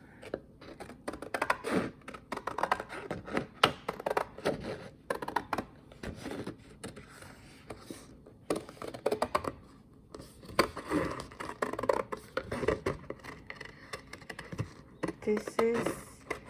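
Scissors cutting through thick printed paper: an irregular run of short snips and clicks.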